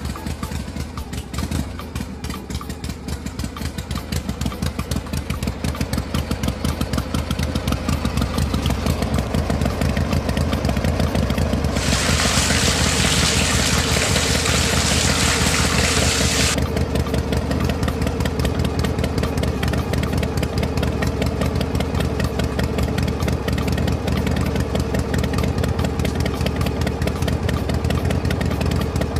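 Small model engine running steadily with a fast, even beat, driving a miniature water pump by its belt; it grows louder over the first several seconds. A loud hiss comes in suddenly for about five seconds in the middle and stops just as suddenly.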